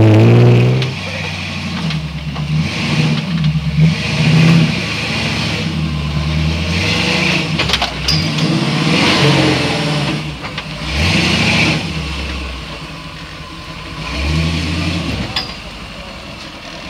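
Off-road rock-crawler buggy engines revving in repeated surges, the pitch climbing and dropping as the throttle is worked under load on steep trail climbs. A short click about halfway through.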